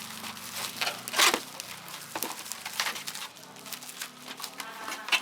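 Irregular plastic clicks and brief rustling from keycaps and a mechanical keyboard being handled during a keycap change.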